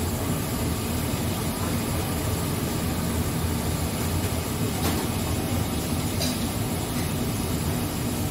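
Steady low rumble of a giant pot of noodle water at a full rolling boil, noodles cooking in it.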